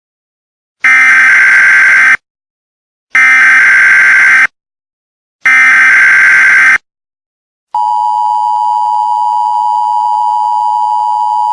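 Emergency Alert System header: three loud bursts of SAME data tones, each about a second long, with short gaps between them. About a second after the last burst, the steady two-tone EAS attention signal begins and keeps sounding.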